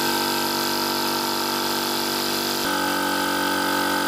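Parkside PKO 270 A2 oil-free air compressor running, a loud steady drone of motor and pump, 98 dB up close. Its tone shifts slightly about two and a half seconds in.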